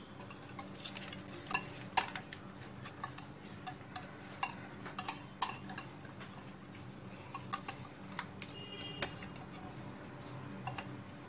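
Metal wire whisk stirring thick semolina and yogurt batter in a glass bowl, the wires clinking irregularly against the glass several times a second.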